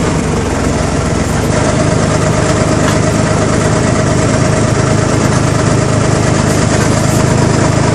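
Small engine of a mini dumper running steadily at close range while its skip tips up, the engine note firming slightly about a second and a half in.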